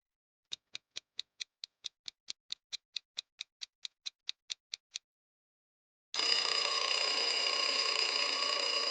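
Quiz countdown-timer ticking, a fast clock-like tick about five times a second for roughly four seconds. It stops, and about six seconds in a steady sound effect starts and lasts about three seconds.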